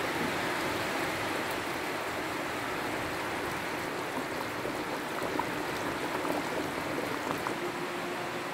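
Egg and potato curry bubbling in a metal pan on the stove: a steady simmering hiss with scattered small pops.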